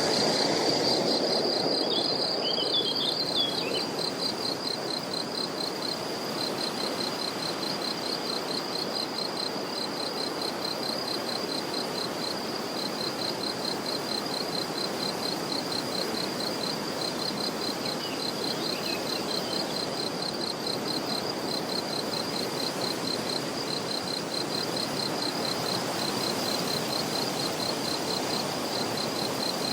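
Crickets chirping steadily in rapid high pulses, with a bird calling briefly a couple of seconds in and again around halfway, over a steady background hiss.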